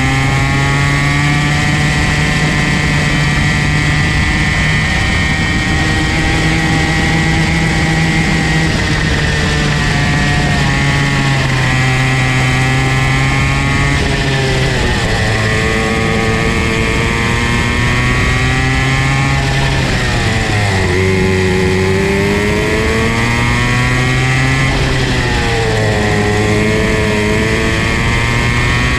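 Comer C50 50 cc two-stroke kart engine running at high revs, heard up close from the kart itself. Its pitch drops sharply three times, near the middle and toward the end, as the kart slows for corners, then climbs again under acceleration.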